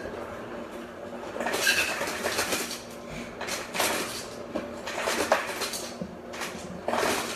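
Ice cubes being scooped and rattling into a container: a run of irregular clattering rattles and knocks.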